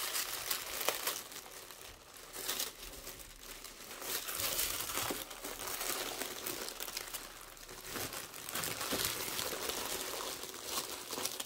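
Crinkling and rustling of packaging: thin tissue paper being unfolded, then bubble wrap crackling as the wrapped bag is handled. An irregular stream of small crackles.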